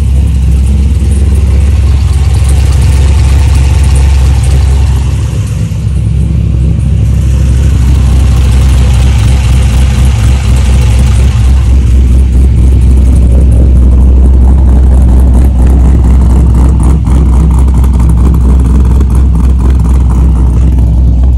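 Cammed LS2 V8 in a C6 Corvette running at idle, a steady loud low rumble, freshly filled with heavier 5W-40 oil meant to quiet its reused lifters, which have been noisier since the cam swap.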